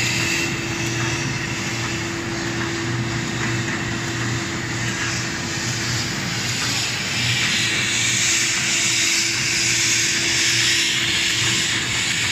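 FMY-series automatic thermal film laminator running, sheets feeding through its rollers: a steady machine noise with a constant hum and hiss.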